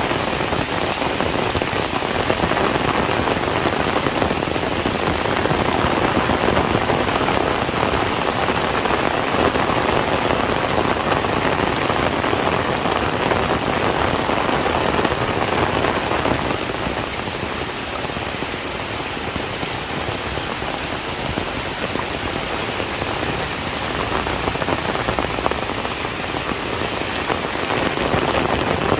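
Heavy rain falling steadily on a surface, a dense even patter that eases a little for several seconds past the middle before building again near the end.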